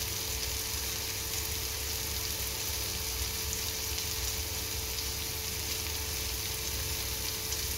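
Sliced bitter gourd with tomato and onion sizzling steadily in a pan, as the water released by the gourd cooks off.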